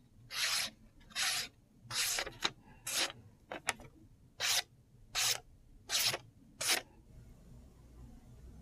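Freshly sharpened Spyderco Para 3 Lightweight folding knife slicing through lined notebook paper in about ten short strokes, a sharpness test of the new edge. The strokes stop about seven seconds in.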